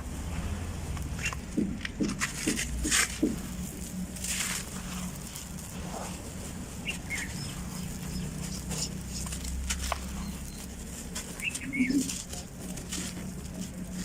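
Dry black sand-cement shapes crumbling and crunching: scattered gritty crackles and clusters of crunches, the loudest about two to three seconds in and again near the end, over a steady low hum.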